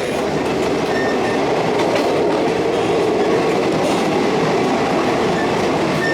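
Passenger train running along the track: a steady rumble of wheels and carriage, with a faint brief high squeal about a second in.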